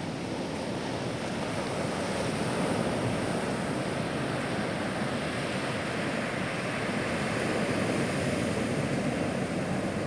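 Pacific Ocean surf breaking and washing up a sandy beach: a steady rush of water that swells a little twice.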